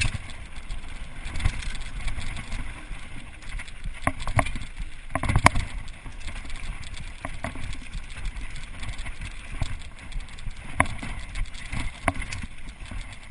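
Mountain bike ridden fast down a dirt and gravel trail: a continuous rough rush of tyre and trail noise with rattling and knocking from the bike over bumps. The loudest knock comes about five and a half seconds in.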